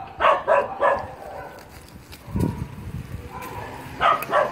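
Dogs barking in short bursts, three barks soon after the start and a few more near the end, with a dull thump about halfway through.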